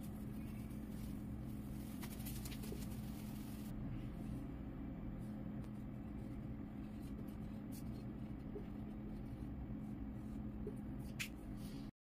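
Steady low hum of room tone, with a few faint, brief scratchy sounds.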